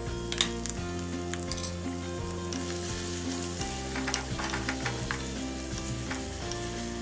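Food frying in hot oil in a pan, with a crackling sizzle and some stirring, under background music with sustained tones.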